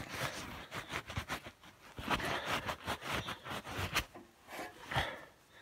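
Close, irregular rubbing and scraping with small knocks: hands cleaning around the hole in a Ferguson TEF20 tractor's gearbox casing.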